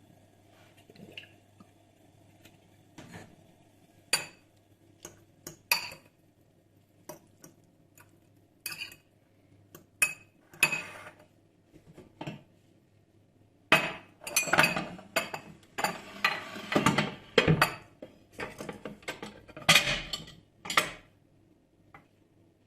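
Dishes and cutlery clinking and knocking. Scattered sharp clicks at first, then a busier run of clattering from about halfway in until shortly before the end.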